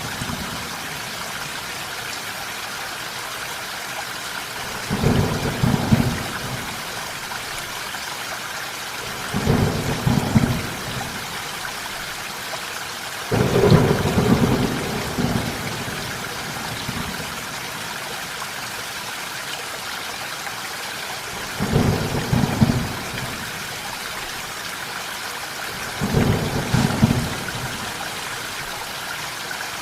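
Steady rain falling, with rolls of thunder rumbling low five times, each a second or two long, the loudest near the middle.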